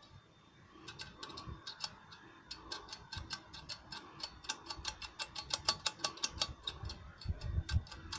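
Rapid metallic clicking and rattling of a VW 1.9 TDI turbo's variable-vane mechanism being worked back and forth by hand. The clicks build to several a second, with a few dull knocks near the end. The vanes are partly seized and move graunchily.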